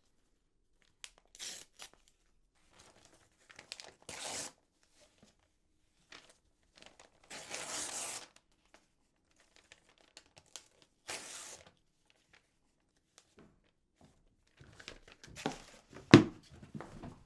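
Sheets of paper rustling and tearing in several separate strokes, the longest about halfway through. Near the end, a few clicks and one loud knock as a small box is handled and shut.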